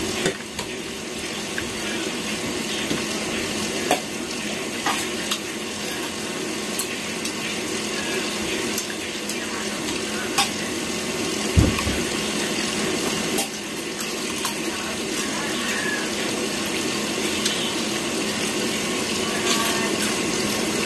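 Spoons and forks clinking now and then against plates and a mug, a dozen or so short sharp clicks over a steady background hiss, with one duller knock about halfway through.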